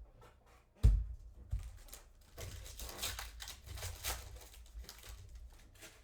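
Trading-card packs being handled and torn open, the wrappers crinkling and ripping, with a dull thump on the table about a second in.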